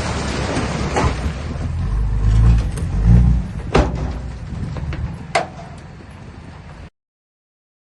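Heavy earthmoving machine's diesel engine running and revving up in surges under load, with two sharp knocks. The sound then drops out completely near the end.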